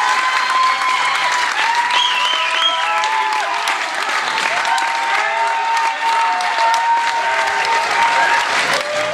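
Concert audience applauding steadily, with scattered voices calling out over the clapping.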